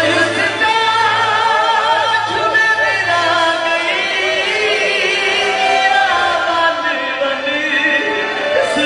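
A Punjabi song playing for a dance: a voice singing wavering, ornamented lines over continuous instrumental backing.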